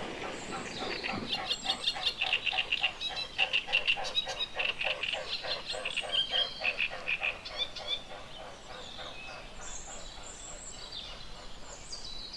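Mute swan's wings throbbing in flight: a rhythmic, pulsing hum of wingbeats at about five beats a second, which fades out some seven or eight seconds in.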